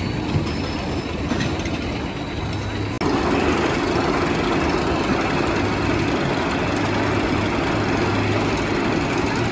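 Roller coaster train being hauled up the chain lift hill: a steady mechanical rumble with a low hum, louder from about three seconds in.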